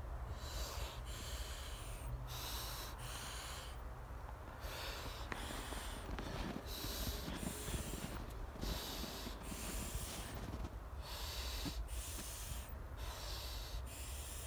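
A man breathing hard through a training mask while doing squats: short hissing breaths about once a second. A steady low rumble runs underneath.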